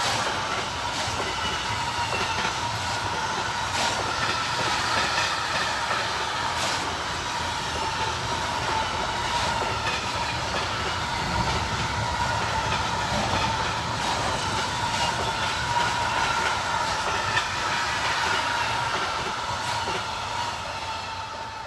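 Freight train wagons rolling past, with irregular clacks of the wheels over rail joints above a continuous rumble and a steady high-pitched tone. The sound dies away near the end as the train passes.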